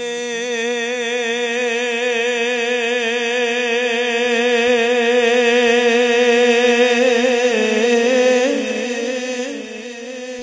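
A man singing a naat unaccompanied, holding one long note with a steady vibrato. About three-quarters of the way through his pitch dips and comes back up before the note fades.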